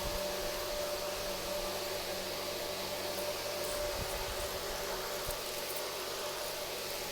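Steady background hiss with a constant low hum and a faint steady tone, with a few faint low thumps about four seconds in.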